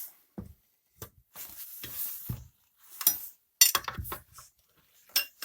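Small hammer tapping a motorcycle tire bead on its rim, with the tire lever scraping between blows: several separate knocks and scrapes, the sharpest about three and a half seconds in. The tapping eases the bead's tension so that it goes over the rim edge more easily.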